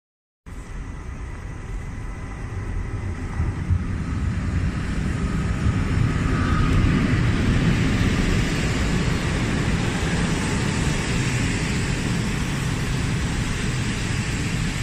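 PKP Intercity passenger train hauled by an electric locomotive running into the station and past the platform: a rumble that grows louder over the first several seconds, then the steady rush of the coaches going by close at hand.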